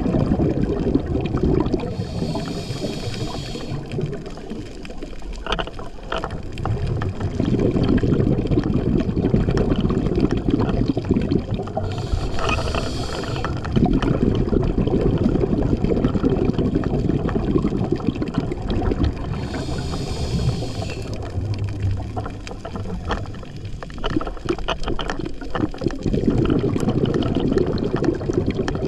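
A scuba diver breathing through a regulator, heard underwater. Long spells of exhaled bubbles alternate with three hissing inhales of about two seconds each.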